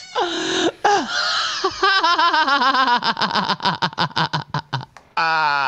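A man laughing hard: a wavering, high-pitched cackle that breaks into a quick run of short laughs, about seven a second, followed near the end by a long drawn-out voiced sound.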